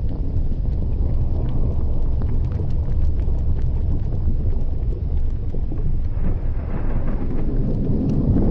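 Erupting volcanic vent giving a steady deep rumble, with faint scattered crackles on top; it swells a little about two-thirds of the way through and again near the end.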